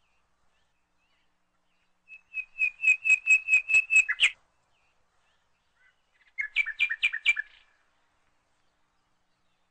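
A bird singing two quick series of repeated high chirps, about five notes a second, the first lasting about two seconds and the second just over a second.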